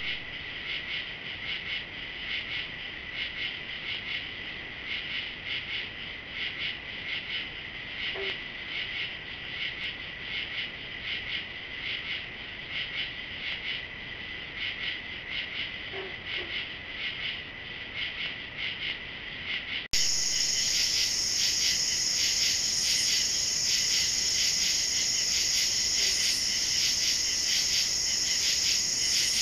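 Night chorus of crickets and other insects: a steady, fast pulsing trill with a constant high tone beneath it. About two-thirds of the way in it cuts to a louder, higher-pitched insect chorus.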